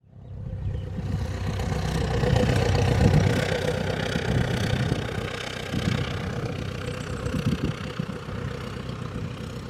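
Boeing 777-300 airliner's jet engines rumbling as it passes, with a steady hum in the sound. It grows loud over the first few seconds, then slowly fades.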